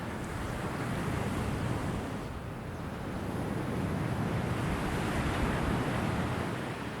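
Ocean surf, a steady wash of waves on the shore that swells and ebbs, growing louder in the second half before easing off near the end.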